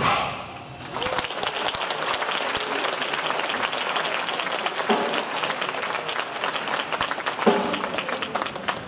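A wind band's final chord dies away, and about a second later a hall audience breaks into steady applause.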